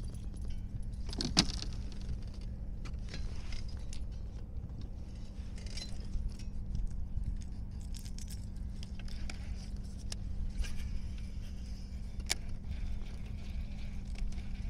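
Light clicks and rattles of a baitcasting reel and tackle being handled, with a couple of sharper clicks, over a steady low rumble.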